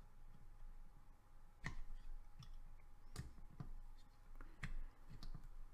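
Batteries being pressed and seated into the tight battery bay of a Koopor Primus 300W vape mod: several small, sharp clicks and knocks spaced out over a few seconds.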